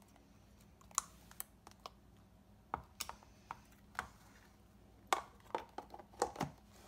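Clear plastic food-storage container being handled: scattered sharp plastic clicks and knocks, then a quick run of snaps about five to six and a half seconds in as the clip-on lid is pressed down and latched.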